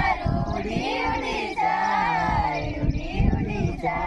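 A group of young women singing an action song together, many voices in unison with the melody rising and falling.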